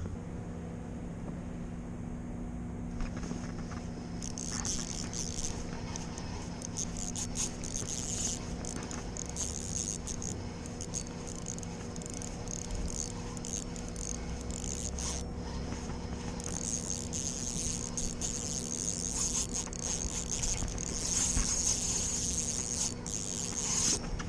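Fishing reel ticking and buzzing in uneven stretches while a hooked salmon is played. A steady low hum runs underneath.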